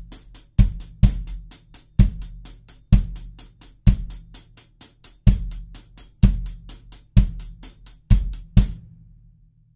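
Acoustic drum kit playing a steady groove: hi-hat strokes about four a second over heavier bass drum and snare hits roughly once a second. The playing stops near the end and rings out.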